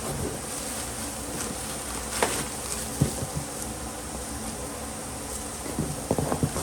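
A steady buzzing hum, with a few sharp clicks and knocks about two and three seconds in and a quick cluster of them near the end.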